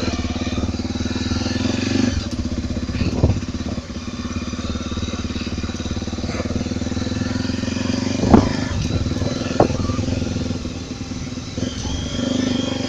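Honda XR 250 Tornado's single-cylinder four-stroke engine running steadily as the bike is ridden, heard from the saddle, with a few sharp knocks.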